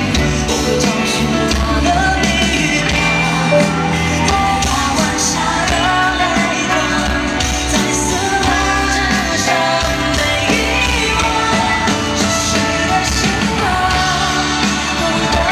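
Live pop-rock band music with a male singer singing into a handheld microphone over drums and keyboards.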